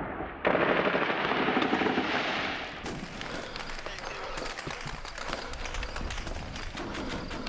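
Battle sound effects of gunfire: a dense crackle of shots starts suddenly about half a second in, muffled at first and turning clearer after about three seconds, over a low rumble.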